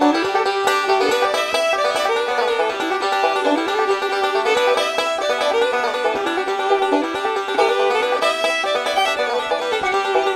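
Background music: a fast plucked-string tune in a bluegrass style, with banjo-like picking.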